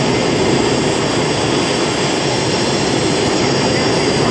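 Aircraft jet engine running steadily: a constant loud rush with a thin, steady high whine above it.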